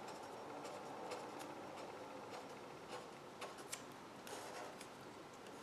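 Felt-tip marker writing a row of small letters, faint scratching strokes of the tip on the writing surface.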